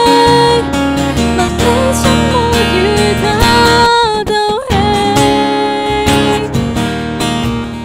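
A woman singing a Cantonese pop ballad into a microphone over a strummed acoustic guitar.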